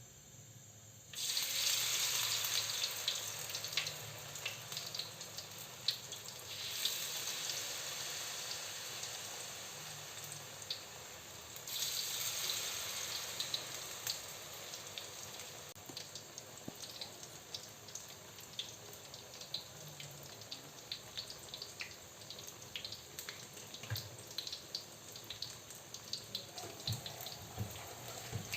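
Flour-battered tempe frying in hot oil: a loud sizzle starts suddenly about a second in and surges again twice, each time easing off, with crackling pops throughout.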